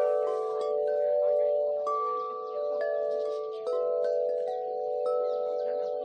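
Wind chimes ringing, several clear tones overlapping and ringing on, with new strikes sounding at irregular moments.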